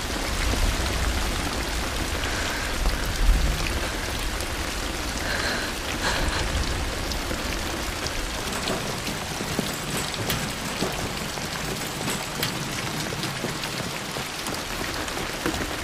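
Heavy rain falling steadily on a paved street, a dense even hiss, with a low rumble under it in the first half.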